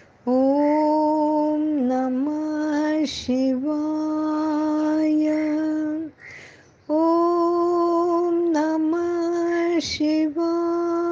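A woman's voice singing a slow devotional chant to Shiva in long held notes, with short breaths between phrases.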